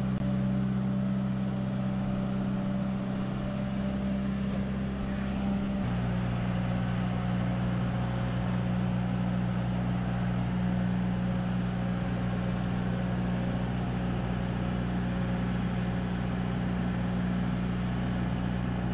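Engine of a Travelift mobile boat hoist running steadily under load as it carries a catamaran, a low drone that shifts slightly lower in pitch about six seconds in.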